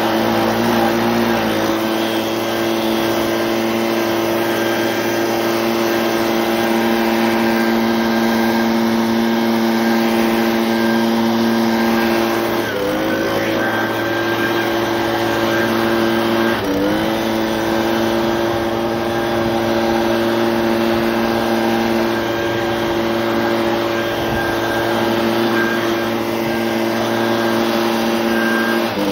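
Gas leaf blower running at high throttle, blowing snow off railroad switch rails and plates with a loud, steady engine note and a rush of air. The engine note dips briefly and picks back up twice near the middle, and once more at the very end.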